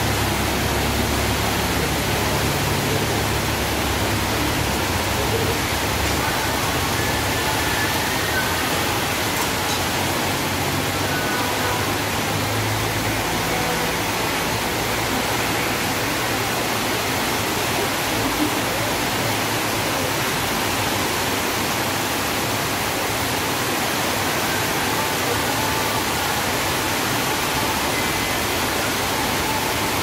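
Heavy tropical rain pouring steadily onto a street and roofs, a constant dense hiss. A lorry's engine adds a low hum in the first half that fades out about halfway through.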